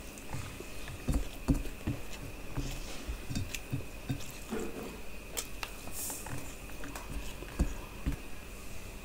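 Close-miked chewing and wet mouth sounds from a mouthful of chicken biryani eaten by hand, with fingers squishing and mixing rice against a steel plate. The sounds come as irregular short thumps and clicks, over a faint steady high whine.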